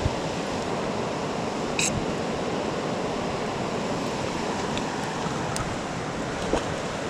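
Steady rush of a fast-flowing river running over rocks, with a few short clicks on top.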